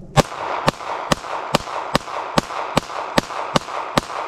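9mm handgun fired in a steady string of about ten shots, roughly two and a half a second, each shot followed by a short echo.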